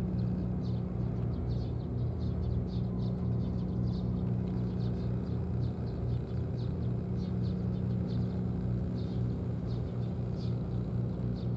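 A steady low mechanical hum, with short high chirps scattered all through it.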